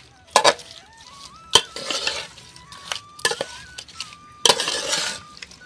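A spoon clinking and scraping against a bowl while spiced raw chicken is being mixed, in a few sharp clinks with scraping between them.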